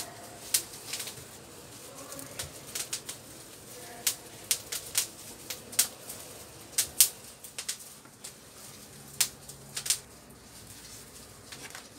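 Irregular sharp clicks and taps as a replacement laptop LCD panel is handled and pressed into the netbook's plastic display lid, the loudest about seven seconds in.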